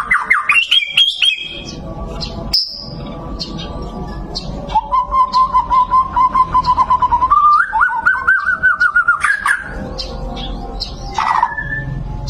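White-rumped shama singing: quick whistled phrases at the start, then a long run of rapid repeated notes that steps up in pitch partway through, followed by a few shorter calls near the end.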